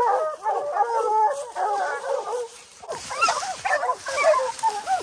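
A pack of hounds barking treed at a bear up a tree, many voices baying and yelping over one another, easing briefly about halfway through before picking up again.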